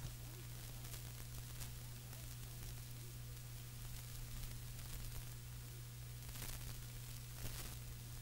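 Faint steady tape hiss with a low, even mains hum: the blank stretch of an old reel-to-reel recording between narrated sections.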